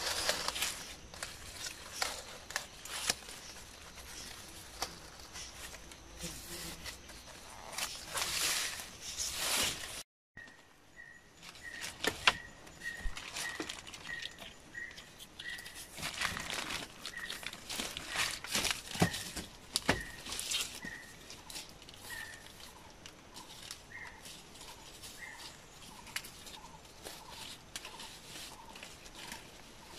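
Stiff, fresh Arenga pinnata palm-leaf strips rustling and scraping in irregular bursts as they are woven by hand into a mat. The sound cuts out briefly about a third of the way in; after that a short high chirp repeats about twice a second in the background for much of the time.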